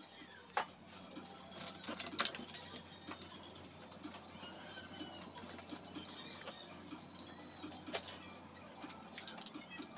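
Hands working a cloth soaked in wet cement slurry: irregular small wet squelches, drips and taps.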